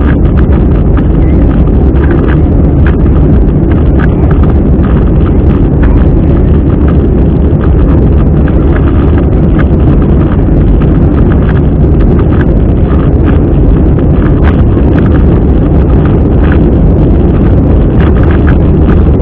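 Inside an Airbus A320 cabin in flight, the jet engines and the airflow give a loud, steady roar. Scattered faint ticks sound over it.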